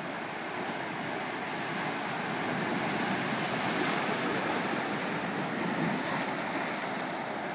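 Ocean surf washing over rocks in a tide pool, white water rushing and draining between them. It grows louder through the middle as a bigger wave surges across the rocks, then eases.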